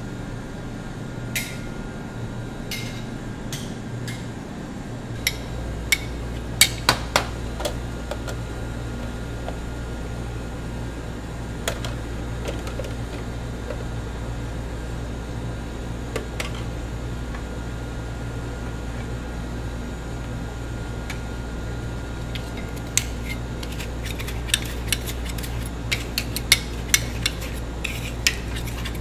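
Metal ice cream spades clinking and scraping on a frozen granite slab as ice cream is chopped and folded with berry mix-ins. The sharp clinks come in clusters a few seconds in and again near the end, over a steady low hum.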